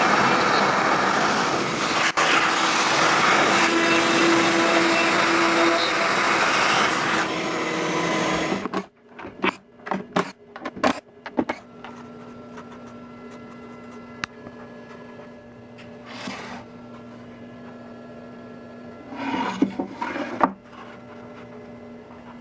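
A ShopBot Desktop CNC router's spindle running steadily as its straight bit cuts radiata pine. It cuts off abruptly about nine seconds in. Several sharp clicks and knocks follow as the wooden frame is handled, then a low steady hum with two brief rustles.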